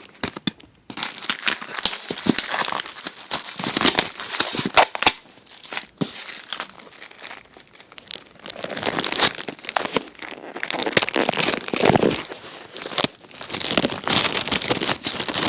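Paper and packaging crinkling and rustling as it is handled, in several bursts with sharp clicks scattered among them.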